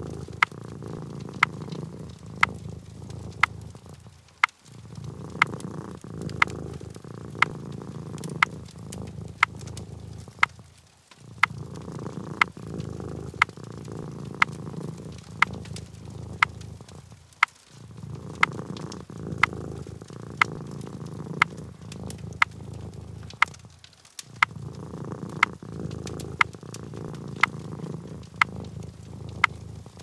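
Domestic cat purring steadily, with a brief pause about every six seconds. Sharp clicks come over it about once a second.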